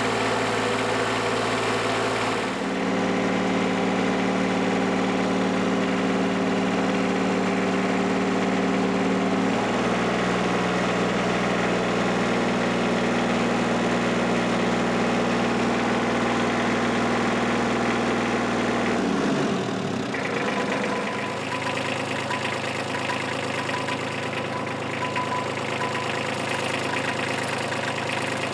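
Kubota F2400's three-cylinder diesel engine running steadily while warming up after years of sitting, its speed shifting a couple of times and dropping to a lower, steady idle about two-thirds of the way through.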